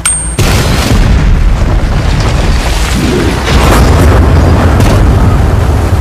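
A short high beep, then explosions and a long, loud rumble of collapsing concrete and falling debris, swelling again about halfway through.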